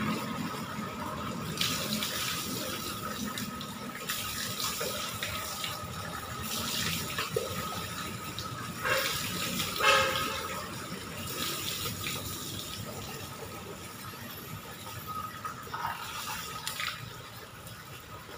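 Water running from a tap into a plastic bucket, with repeated splashes as water is scooped and poured and hits a wet concrete floor; the loudest splash comes about ten seconds in.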